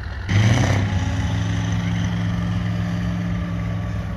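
Heavy off-road truck's diesel engine: a short loud rush of noise about a third of a second in, then the engine running steadily with a deep, even drone.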